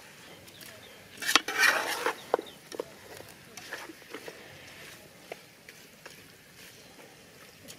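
A perforated metal ladle stirring chicken pieces in an aluminium pot, clinking and scraping against the pot in scattered knocks. There is a louder stretch of scraping and shuffling about a second and a half in.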